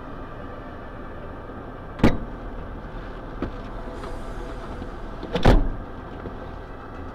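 Construction-site machinery running steadily, with two loud bangs, one about two seconds in and a longer one about five and a half seconds in, and a fainter knock between them.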